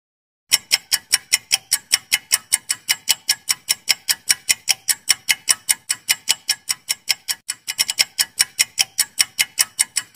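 Quiz countdown-timer sound effect: rapid, even clock-like ticks, about five a second, starting about half a second in.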